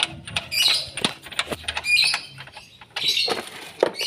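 Scattered sharp metallic clicks and clinks as the lock nut is fitted onto a new rear wheel hub bearing, with a few short high-pitched chirps.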